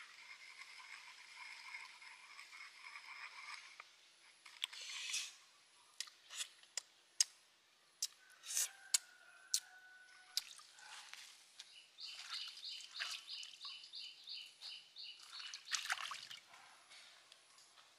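Wooden pestle stirring thin chili sauce in a wooden mortar, with wet sloshing and several sharp clicks of wood on wood from about five to ten seconds in. A steady high buzz runs under the first few seconds, and a fast pulsing high chirp comes in later.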